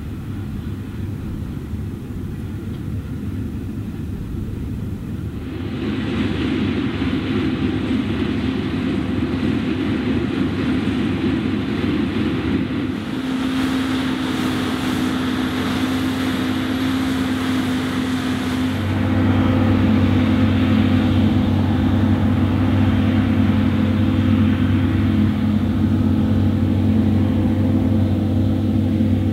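Claas Lexion 670 Terra Trac combine harvester running as it harvests wheat: a steady engine hum under the threshing and cutting noise, growing louder about six seconds in and again a little past the middle as the machine draws closer.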